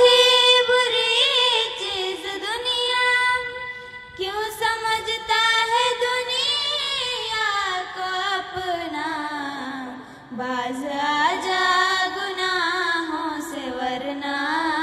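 Two girls singing together into handheld microphones: long, drawn-out phrases of held, wavering notes without words being clearly sung, with short breath breaks about four and ten seconds in.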